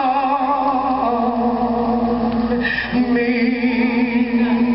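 Slow worship song: a singer holds long, wavering notes, with a short break about three seconds in before the next held note.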